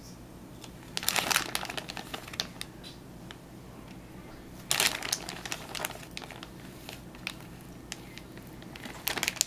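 Plastic bag of shredded cheese crinkling as a hand reaches in and sprinkles the cheese, with two louder rustles, about a second in and about halfway, and small crackles between.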